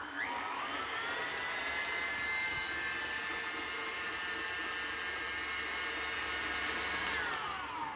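Tilt-head stand mixer running with its flat beater, beating egg into creamed butter and sugar in a glass bowl. The motor whine rises as it spins up, holds steady, then falls away as it is switched off near the end.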